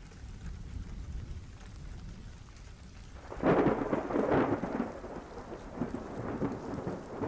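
Thunderstorm: steady rain with a low rumble, then a louder peal of thunder starting about three and a half seconds in that fades over the next couple of seconds.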